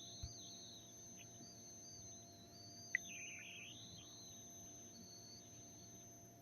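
A faint, high warbling tone, one of the Sony Xperia L4 phone's built-in sounds played through its speaker, wavering up and down and dipping lower about three seconds in, with a sharp click in the middle.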